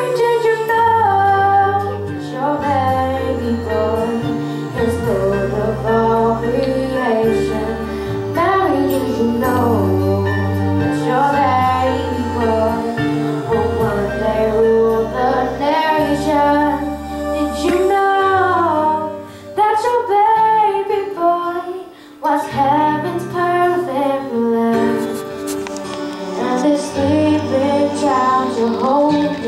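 A girl singing a Christmas song solo into a microphone over an instrumental accompaniment with a steady bass line.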